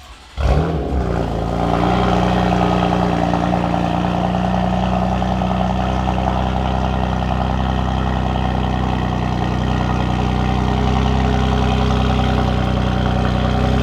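BMW F80 M3's twin-turbo inline-six starting up about half a second in, flaring briefly, then settling into a steady idle. Its exhaust runs through a single midpipe with the secondary catalytic converters and mid resonator removed, giving a deep, rich rumble.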